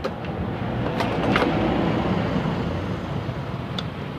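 Rumbling noise of a passing motor vehicle, swelling over about two seconds and then fading, with a couple of light clicks about a second in.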